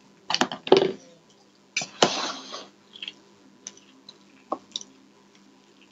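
Close-miked eating sounds: noodles being slurped and chewed in a few noisy bursts over the first few seconds, then light clicks of fork and tongs against plates and bowls.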